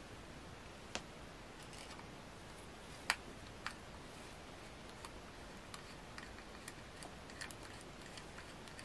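Light clicks and taps of small metal and plastic parts as the air-assist pump's end plate and circuit board are fitted back into its aluminium housing and a screwdriver is worked at it. A few separate clicks come in the first four seconds, the sharpest about three seconds in, then a run of lighter ticks.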